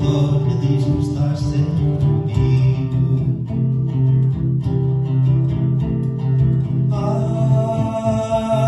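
Guitar playing an instrumental passage of plucked notes accompanying a fado song.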